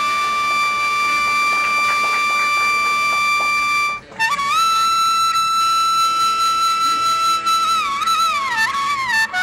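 Background music on a single wind instrument playing long held notes, with a brief break about four seconds in and wavering slides down in pitch near the end.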